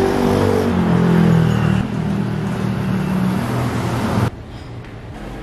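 A motor vehicle's engine passing on the street, its pitch dropping as it goes by and then holding steady over traffic noise. It cuts off abruptly a little past four seconds in, leaving quieter street background.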